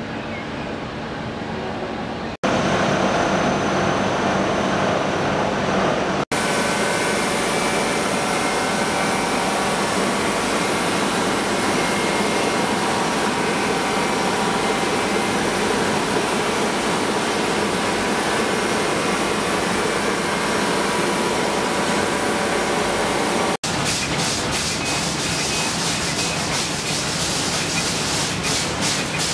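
Plastic bag factory machinery running: a steady mechanical din from a blown-film extrusion line. The sound changes abruptly a few times, and in the last several seconds a bag-making machine adds a fast, even clicking.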